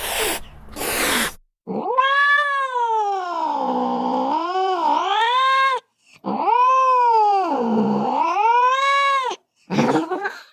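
Domestic cat caterwauling: two short hisses, then two long drawn-out yowls that dip in pitch in the middle and rise again, then a short harsh cry near the end.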